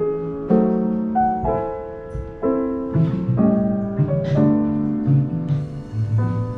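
Yamaha self-playing grand piano, its keys driven by a recorded performance, playing a sequence of sustained chords in a piano-trio piece, with low notes sounding beneath.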